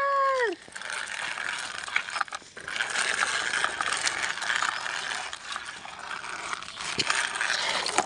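Plastic toy truck rolling over stony dirt, its plastic wheels and body rattling and crackling with many small clicks, and a sharp click about seven seconds in. A short high call with a falling end stops about half a second in.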